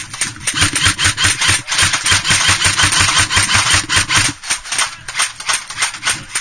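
Airsoft guns firing close by in rapid full-auto strings, a fast run of sharp cracks that breaks off briefly about a second and a half in and again past four seconds.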